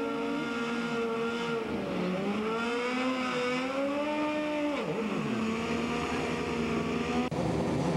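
Drag-racing motorcycle engine running at high revs: a steady engine note that climbs and wavers partway through, drops sharply, then holds again before breaking off abruptly near the end.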